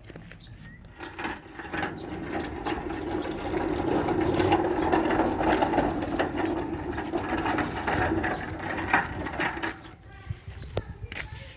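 A metal sliding gate rolling along its track: a steady rolling run with many small clicks and knocks. It builds about a second in and stops about ten seconds in.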